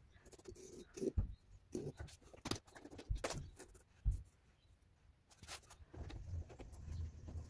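Irregular clicks, taps and soft knocks of hands handling plastic tile-leveling caps and pressing on ceramic floor tiles, with a few duller thumps about one, three and four seconds in.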